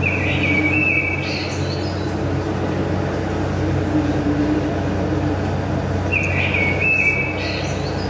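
Two short bursts of bird song, each about a second long, one at the start and one about six seconds in, over a steady low hum and hiss: recorded birdsong in the quiet opening of the dance's music track.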